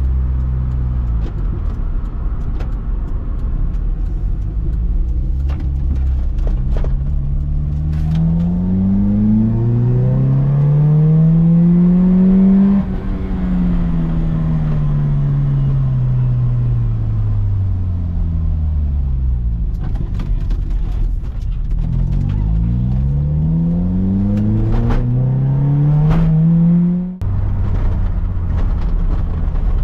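Opel Speedster's 2.2-litre 16-valve four-cylinder engine heard from inside the cabin while driving: the revs climb steadily for about five seconds, fall away slowly after a sudden drop in level, then climb again and cut off sharply near the end before settling to a steady lower drone.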